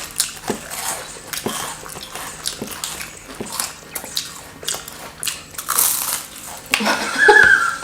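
A person chewing and biting food close to the microphone, with irregular wet mouth clicks and smacks. A brief voiced sound and breath come near the end.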